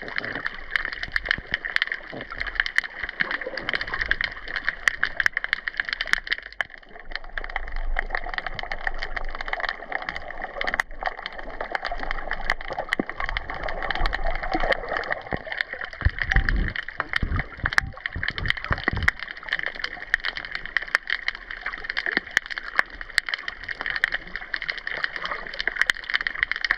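Sea water heard through a GoPro hanging underwater off a jetty: a steady muffled wash with constant fine crackling clicks, and a few deep thumps of the camera knocking about on its string about two-thirds of the way through.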